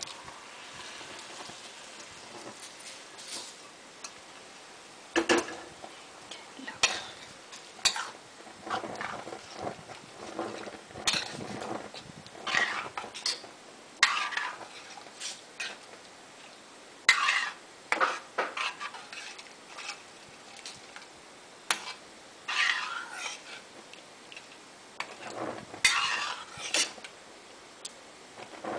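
A metal spoon scraping and knocking against a pan while boiled chana dal with spinach is poured in and stirred into a wet tomato gravy. Irregular scrapes and clinks, some sharp, with short pauses between strokes.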